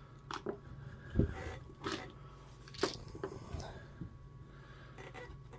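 A few sharp plastic clicks and knocks as the two halves of an electric cutoff tool's plastic housing are pried apart and handled, the loudest about a second in.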